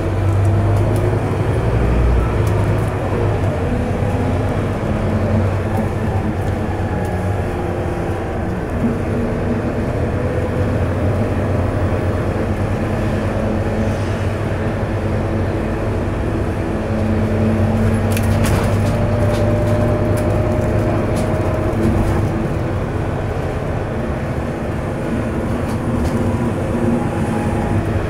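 Inside a moving Scania K230UB bus: the Scania DC9 diesel running under load, with the ZF Ecomat automatic gearbox howling at a pitch that rises and falls as the bus speeds up and slows. A few sharp clicks sound about two-thirds of the way through.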